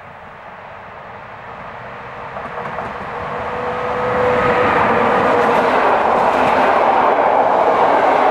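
EU160 (Newag Griffin) electric locomotive hauling an Intercity passenger train, approaching and passing close at speed. The rushing noise grows steadily louder, with a brief whine as the locomotive goes by about four seconds in. Then comes the steady rush of the coaches rolling past.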